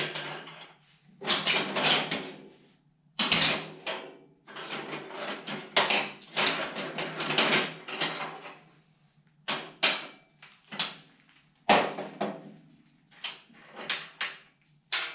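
Irregular metallic scraping, clinking and clattering of bolts, nuts and parts being handled and fitted by hand while reassembling a snow blower, in uneven bursts with short pauses between.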